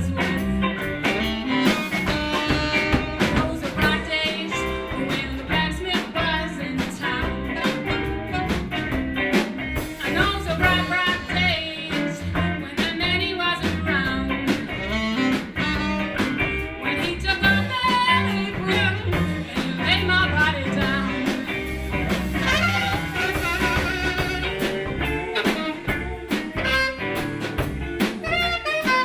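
Live blues band playing, guitar among the instruments.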